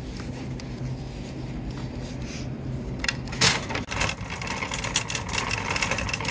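Red plastic shopping cart loaded with bagged groceries rolling over a parking lot, rattling and clattering, with one loud knock about three and a half seconds in. A steady low hum runs underneath through the first half.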